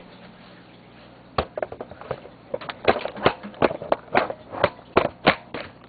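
A run of irregular clicks and knocks as a laptop is closed and a swivelling desk surface is turned and folded away between wooden panels. The knocks begin about a second and a half in and come faster toward the end.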